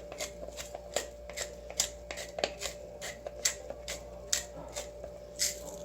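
Pepper grinder being turned over the chicken, a run of dry crunching clicks about three times a second.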